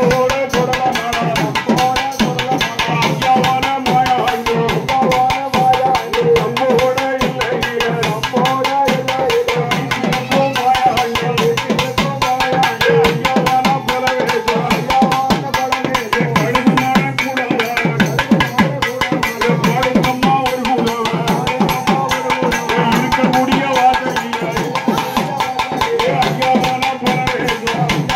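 Live Tamil kummi folk-song music: a fast, unbroken hand-drum rhythm whose bass strokes drop in pitch, over steady held notes.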